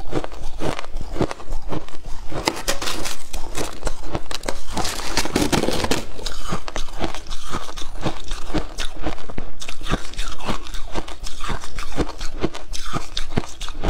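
Close-up crunching of shaved ice being chewed, many crisp crunches a second. About five seconds in, a metal spoon scrapes and scoops through the tray of shaved ice.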